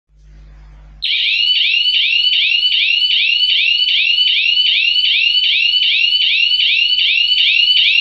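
Small red electronic alarm siren of a DIY PIR motion-sensor burglar alarm, sounding about a second in with a loud, high-pitched, rapidly repeating rising whoop, about two and a half sweeps a second.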